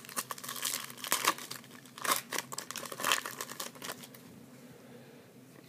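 A foil trading-card pack wrapper being torn open and crinkled, a run of irregular crackling rustles that dies away about four seconds in.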